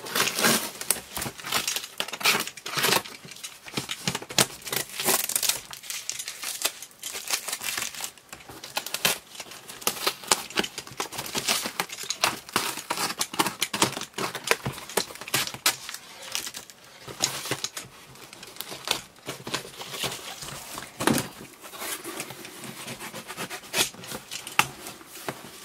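Box cutter slicing and ripping packing tape on a cardboard shipping box, a long run of irregular scratchy rips and crinkles. Near the end the cardboard flaps are pulled open.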